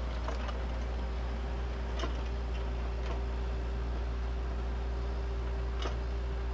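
Bobcat 435 compact excavator's diesel engine running steadily, a constant low hum with a steady mid-pitched whine over it, broken by a few sharp clicks.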